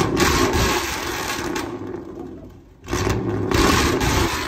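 1998 Chevy Silverado 1500's 5.7-litre V8 revving through a straight-piped true dual exhaust with no mufflers. A rev dies away over the first couple of seconds, then a second throttle blip comes about three seconds in and falls off again.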